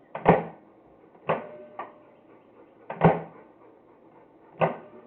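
GE microwave oven door being opened and shut: four sharp latch clunks, one followed by a lighter click, over the faint steady hum of the microwave running, which switches itself on with the door open, a fault in the oven.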